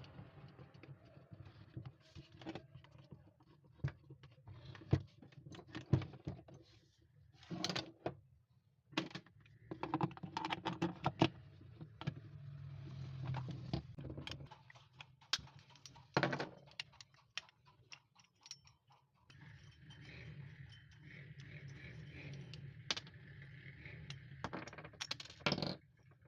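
Irregular clicks, knocks and light rattles of small hard parts being handled, with a faint low hum underneath.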